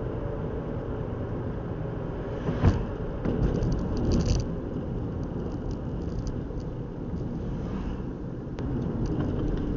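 Car driving at moderate speed, heard from inside the cabin: steady low road and engine rumble, with a single sharp knock about two and a half seconds in and a short spell of rattling clicks around four seconds in.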